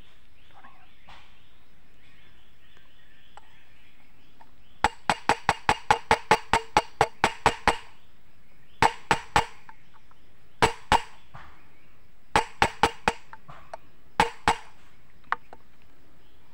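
Hammer blows on a metal drift, driving a rear wheel bearing into the hub of a Honda CB Unicorn's wheel. A fast run of about fifteen ringing metallic strikes, some five a second, is followed by short bursts of two to four strikes and a final single blow.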